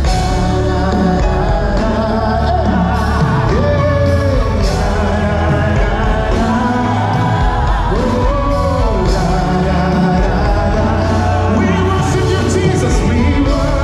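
Live gospel worship song from a full band with drums, a lead singer and backing vocalists, played loud over a PA in a large hall and heard from among the audience.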